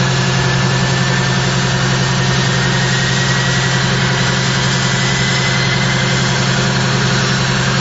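Rolls-Royce Tyne turboprop engines of a Vickers Vanguard (Merchantman) airliner running on the ground: a loud, steady low drone with a thin high whine that rises slowly in pitch.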